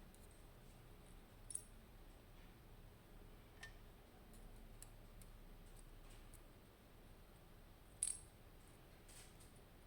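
Small steel lock parts, the discs of an ABUS Plus disc-detainer core being disassembled, clicking and clinking now and then against each other and the work surface, with the sharpest clink about eight seconds in. Between the clinks it is near silent.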